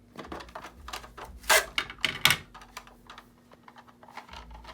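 Hard plastic PCGS coin slabs clicking and clacking together as they are handled and taken out of a box, with two louder knocks in the middle.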